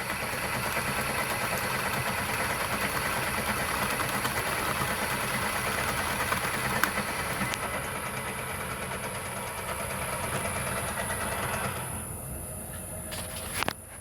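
Myford Super 7 lathe running, turning a small grease-nipple head down to size. The sound thins out near the end, with a couple of sharp knocks just before it drops away.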